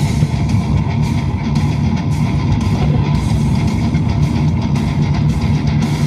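Rock music with electric guitar and drums, keeping a steady beat.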